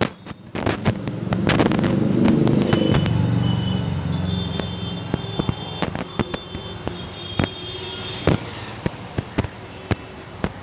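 Firecrackers going off outdoors: many sharp pops at irregular intervals, with a louder low rumble about a second and a half in that fades over the next few seconds. A thin high tone comes and goes.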